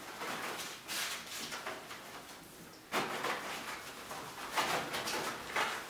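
Young puppies scrabbling about on a tile floor, their claws scratching and toys scraping across it in irregular bursts, with a sharper scrape about three seconds in.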